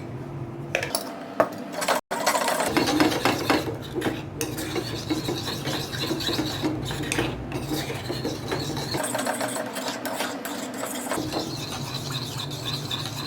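A spoon stirring and scraping around a small metal pan as the amla-ginger and honey syrup is mixed and cooked, with an uneven run of short scraping strokes.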